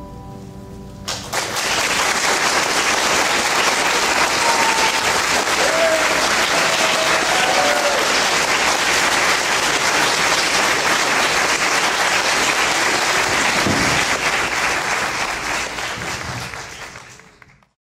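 An upright piano's last chord dies away, then audience applause breaks out about a second in, with a few shouts of approval early in the clapping. The applause holds steady, then fades out near the end.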